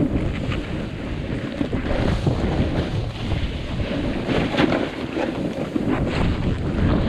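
Snowboard edge scraping and sliding through snow on a steep descent, under heavy wind rumble on the action camera's microphone. Louder scrapes come with turns, about two, four and a half, and six seconds in.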